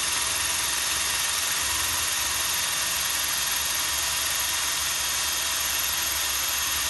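Power drill running steadily, drilling out a tack-welded bolt: a constant whine over a hiss.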